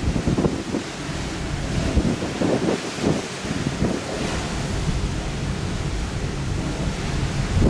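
Wind buffeting the microphone in irregular gusts, over a steady rush of sea water along the side of a moving ferry.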